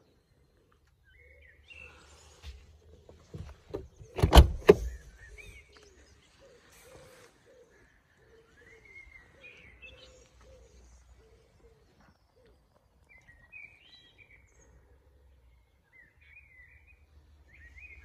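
A car door shuts with a heavy thud about four seconds in, with a second, smaller knock just after. Birds chirp in the background throughout.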